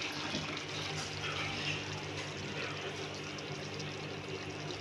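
Cauliflower curry sizzling in a steel pan on a gas stove: a steady hiss with a low, steady hum underneath.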